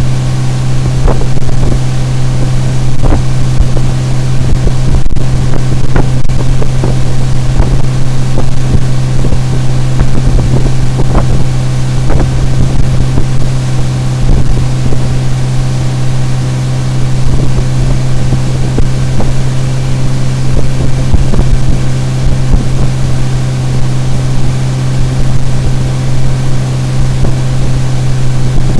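A 50 HP Mercury CommandThrust (Bigfoot) outboard motor running steadily under way, a constant low drone that holds the same pitch throughout, over rushing water and wind noise, with occasional faint knocks.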